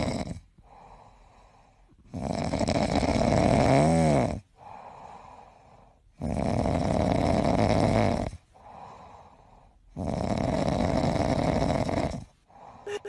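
Domestic cat snoring in its sleep: a long loud snore about every four seconds, three in all, with much quieter breaths between.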